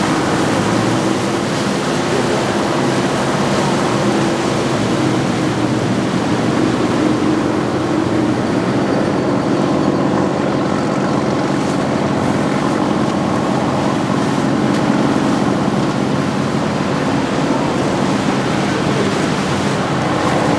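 Inboard diesel engines of large motor yachts running steadily at slow speed, a continuous hum, with water churning in their wake.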